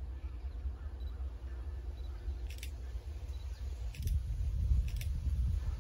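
Wind buffeting the microphone, a choppy low rumble that gusts stronger about two-thirds of the way through, with three short sharp clicks.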